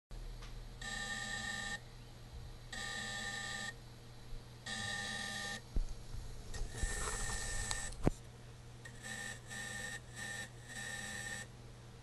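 DJI Phantom 2 Vision+ camera gimbal motors giving off a high buzzing whine in bursts of about a second, roughly every two seconds, turning choppier and stuttering later, with a few clicks in the middle. This is the fault noise that the owner says stops once the camera is tilted fully down.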